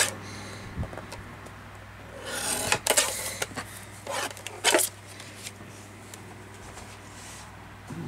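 Paper being cut and handled on a craft table: a scraping sweep about two seconds in, a few sharp clicks and rustles, then quieter handling, over a steady low hum.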